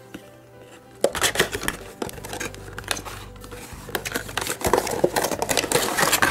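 Clear plastic blister packaging and cardboard being handled and pried open by hand. After about a second of quiet, the plastic crackles and clicks rapidly and unevenly.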